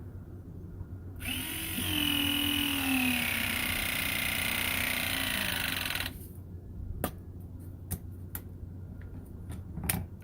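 Ridgid ProPress battery press tool running for about five seconds as it crimps a copper press fitting, its motor pitch sinking under the load as the jaws close, then stopping, followed by a few light clicks.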